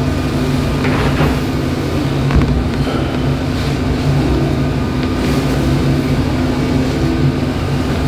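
Steady low droning hum with a few faint ticks.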